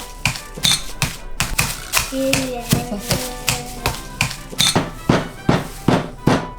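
Chocolate being crushed by repeated blows of a stick, a rapid, uneven series of sharp knocks about two to three a second, over background music.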